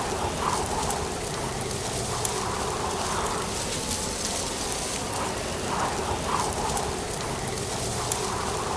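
Strong wind blowing through dry autumn leaves: a steady rustling hiss with fine crackles and soft swells as gusts come and go.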